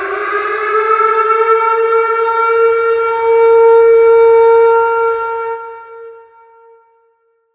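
Tornado warning siren sounding: its tone finishes rising in the first second, holds a steady pitch, then fades away about six seconds in.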